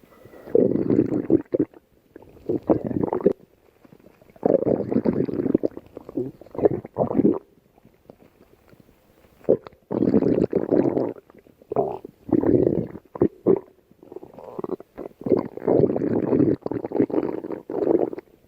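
Stomach growling in irregular bursts of half a second to a few seconds, with short quiet pauses between.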